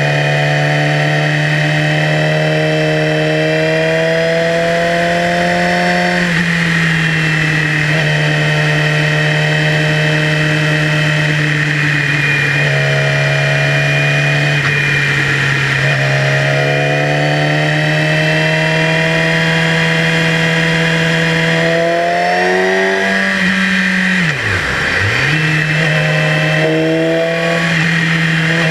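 Yamaha YZF-R6's inline-four engine running at road speed, its pitch climbing slowly in several long pulls and dropping back between them. Near the end the pitch falls sharply and briefly, then comes straight back up.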